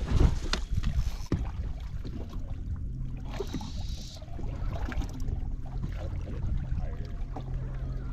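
Wind buffeting the microphone and small waves slapping against a fishing boat's hull, gustiest at the start. A faint steady hum joins about three seconds in.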